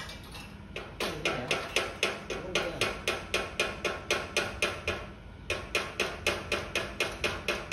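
Rapid, even hammer blows on metal, about four a second, each with a short ring. They start about a second in, pause briefly about five seconds in, then resume.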